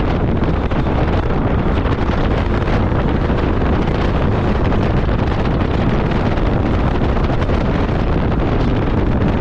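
Heavy wind buffeting the microphone over a running side-by-side UTV engine.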